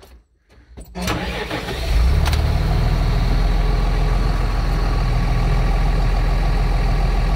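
Massey Ferguson 6480 tractor's diesel engine being started about a second in, catching and then idling steadily.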